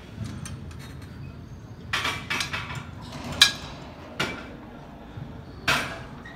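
Cybex multi-hip machine clanking: several sharp metal clacks and clicks as its lever arm and pad are set and moved, with the loudest and sharpest about three and a half seconds in.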